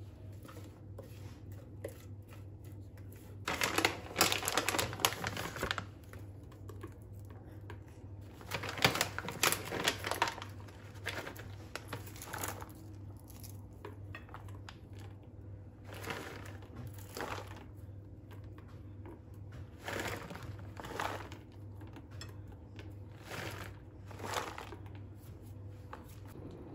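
Intermittent kitchen handling noises: bursts of rustling and scraping a second or two long, about six in all, over a steady low hum.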